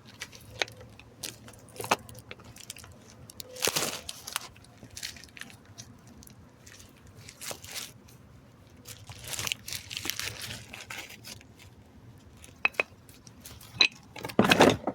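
A cardboard box being opened and new brake pads unpacked: packaging tearing and rustling, with scattered clicks and clinks as the pads are handled, and a louder burst of handling noise near the end.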